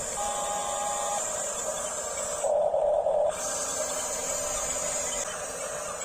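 Small electric motors and plastic gearboxes of an RC bulldozer whining steadily, with a louder grinding burst about two and a half seconds in that lasts under a second.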